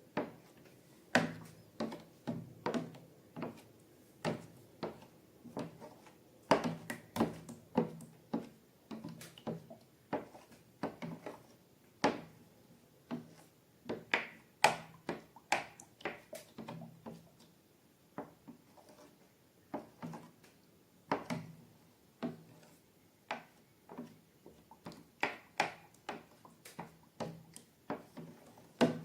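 Hand-worked slime squeezed and kneaded, giving irregular sharp clicks and pops, a few a second, with short pauses between bursts.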